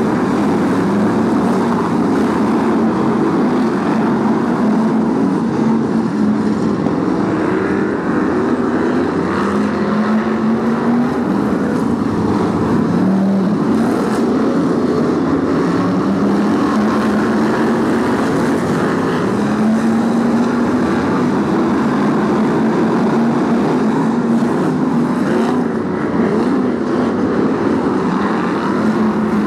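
Several BriSCA F1 stock cars' V8 engines racing around a shale oval, a dense steady engine noise whose pitch rises again and again as the cars accelerate out of the bends.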